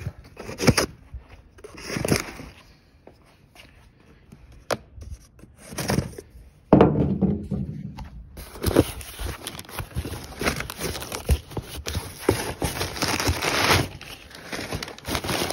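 Packing tape on a cardboard box being slit with a knife in a few separate rasping strokes, then a loud cardboard thud as the box is handled about seven seconds in. Crumpled packing paper then crinkles and rustles steadily as hands dig through the box.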